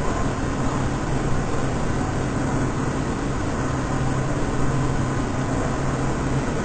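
Vehicle engine running steadily, a low hum under a constant wash of noise.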